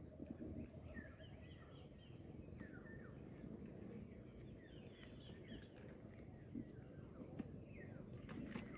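Faint birds chirping, with many short, high chirps scattered throughout over a low, steady outdoor hush.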